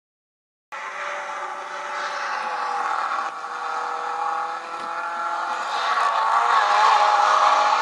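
Racing car engines running hard, several engine notes held with slow shifts in pitch and one dropping away, growing louder toward the end. The sound starts after a brief silence.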